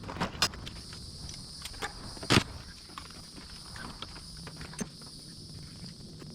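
Scattered clicks and knocks of tools and engine parts being handled during disassembly of a diesel engine's intake, with one loud knock about two and a half seconds in, over a steady low hum.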